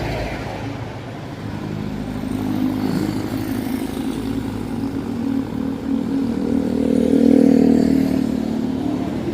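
Road traffic: a motor vehicle's engine running, growing louder and peaking about seven seconds in, then easing off.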